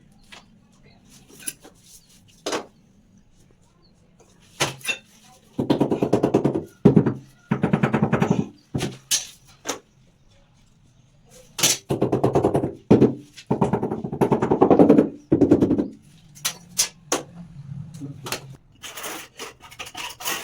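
A rattling stream of very rapid impacts in two bursts of about four seconds each, from a tool working on the tiled wall, with scattered separate knocks and taps around them.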